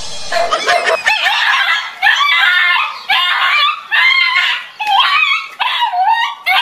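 A string of shrill, wavering cries, about one a second, each bending up and down in pitch.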